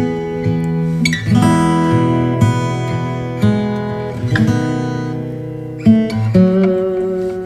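Background music: acoustic guitar strumming chords, a new strum about every second.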